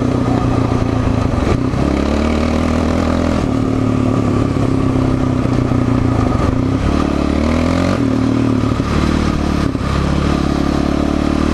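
Yamaha Raptor 700 quad's single-cylinder engine running at speed, its pitch dipping and climbing again about two, seven and ten seconds in.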